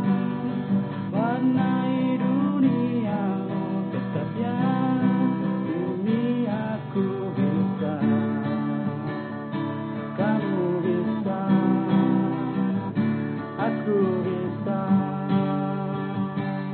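Acoustic guitar strummed as a song accompaniment, with a melody line sliding up and down in pitch over the chords.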